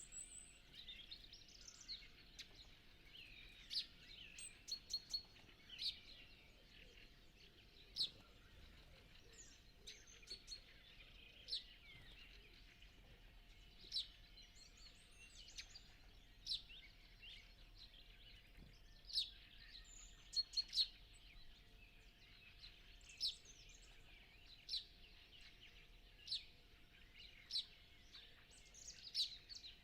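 Dawn chorus of mixed songbirds, faint and layered, with one bird giving a sharp, short call every two seconds or so. A faint steady hum runs underneath.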